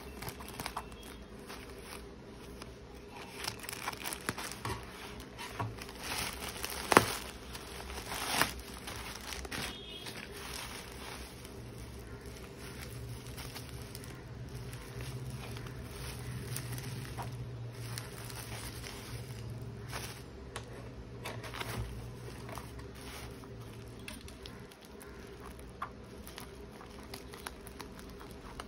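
Plastic mailer and bubble wrap rustling and crinkling as a package is handled and cut open with scissors, with scattered small clicks and two sharp clicks about seven and eight and a half seconds in.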